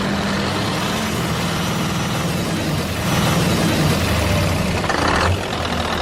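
Truck engine running steadily, with a short burst of hiss about five seconds in.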